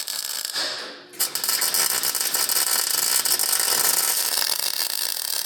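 MIG welder arc crackling on sheet steel: a short burst, a brief pause, then a steady run of continuous crackle lasting over four seconds.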